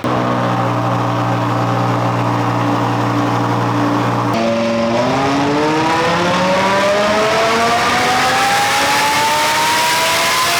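Supercharged Lamborghini Huracán's 5.2-litre V10 running on a chassis dyno: it holds steady revs for about four seconds, then goes into a full-throttle pull with the pitch rising steadily to the end.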